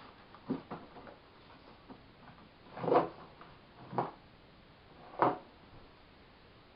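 Handling noise from a sheathed katana being strapped in place: two light knocks, then three louder knocks of the scabbard and fittings about a second apart, the first of these the loudest.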